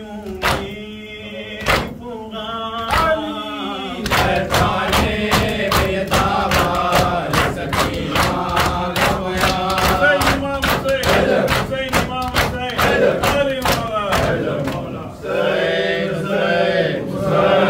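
Group of men chanting a noha (Shia lament) in unison while slapping their chests in matam. The slaps come about once a second at first, then about two or three a second from around four seconds in. Near the end the slapping stops and the voices rise together in a loud chant.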